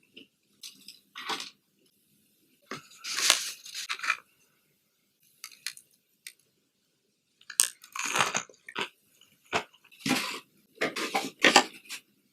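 Crunching bites into breaded chicken tenders, with chewing, in irregular bursts separated by short pauses; the bursts are loudest and most frequent in the second half.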